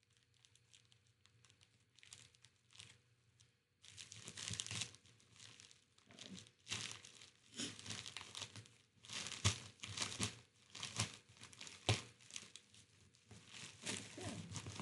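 Packing materials crinkling and tearing as a shipping box is unpacked, in irregular bursts that are faint at first and louder from about four seconds in.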